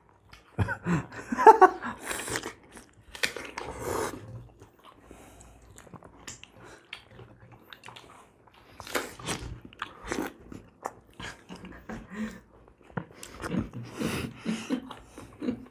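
People biting into and chewing ripe Rupali mangoes, with irregular bites and mouth noises coming in uneven bursts.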